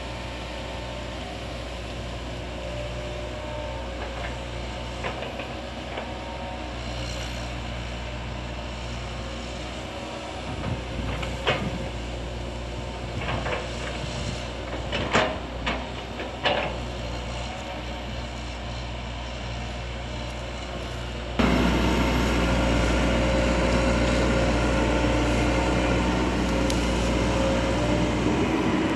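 Komatsu PC200LC hydraulic excavator's diesel engine running steadily under load as it digs, with a few sharp knocks in the middle. About three quarters of the way in the engine becomes much louder, heard up close to the machine.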